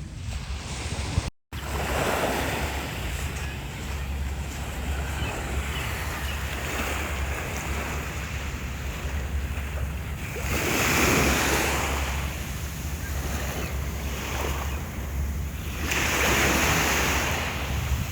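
Sea waves washing onto a beach, swelling louder twice, about eleven and sixteen seconds in, with wind buffeting the microphone.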